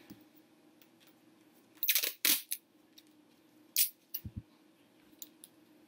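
Masking tape pulled off its roll and torn in a few short rasps: two about two seconds in and one near four seconds, followed by light knocks and ticks of handling.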